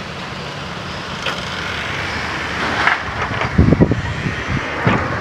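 Storm wind blowing hard and swelling, with cracking and heavy crashing of something collapsing in the gale about three and a half seconds in, and another crack near the end.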